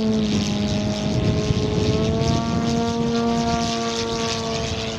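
The propeller drone of an electric giant-scale P-51D Mustang RC model in flight: a 24x8 two-blade propeller turned by a brushless motor, with no sound generator fitted. The pitch dips just after the start and climbs back about two seconds in, then holds steady.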